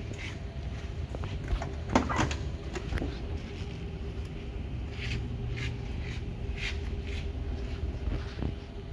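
Car door of a 1967 Chevrolet Impala unlatched and swung open with a short clatter about two seconds in, followed by a few soft scuffs, over a steady low background hum.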